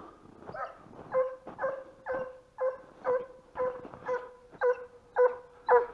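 A hunting hound baying in a steady rhythm of about two barks a second, louder toward the end: the dog giving voice as it runs a hare.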